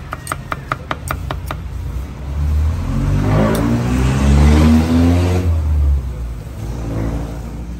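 A cleaver knocks on a wooden chopping block about four times a second, stopping after a second and a half. Then a motor vehicle drives past, its engine revving up and rising in pitch, loudest about four seconds in and fading out by six seconds.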